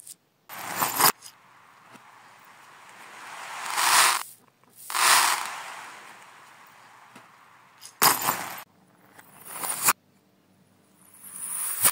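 Clatter of small hard objects (candies, beads and tiny metal bells) scattering across a laminate floor, played in reverse. There are several swells, each building up and then cutting off abruptly. Near the end a faint, thin high ringing of the little bells carries on.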